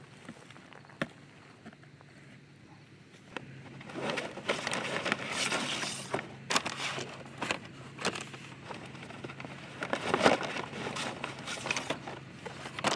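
Decoy bag and plastic goose decoys being handled, rustling and knocking with sharp clicks. The sound starts about three and a half seconds in, after a single click about a second in.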